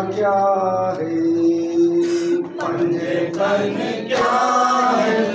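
A man chanting a noha, a mournful Urdu lament, in a melodic recitation with long held notes, other voices joining in. A few sharp thumps are heard between the lines.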